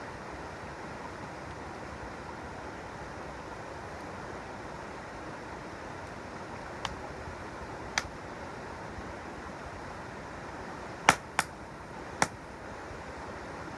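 A campfire's burning wood crackling, with a few sharp pops in the second half, three of them close together near the end, over the steady rushing of a mountain stream.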